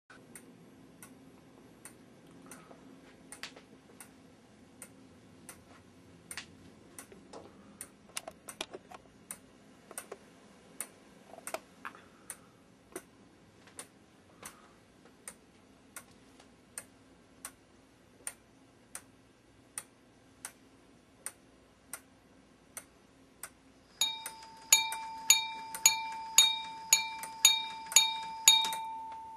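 A weight-driven Lego Technic clock ticking steadily, about three ticks every two seconds. About 24 seconds in, its hammer strikes the metal chime to sound the hour, about ten rapid strikes roughly two a second, and the ringing tone hangs on after the last one.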